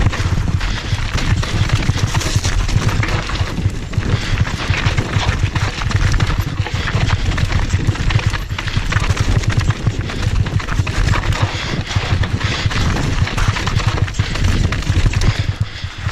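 Downhill mountain bike descending a rocky, loose trail at speed: a continuous fast clatter and rattle of tyres, frame and suspension hammering over rocks and gravel.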